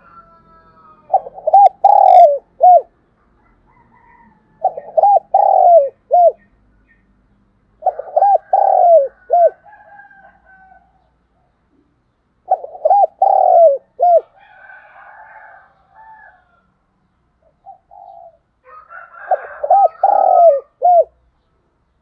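Spotted dove cooing in five phrases a few seconds apart, each phrase about four notes with a short clipped last note. This is the cooing of a call-bird (decoy dove) used to challenge and lure wild spotted doves.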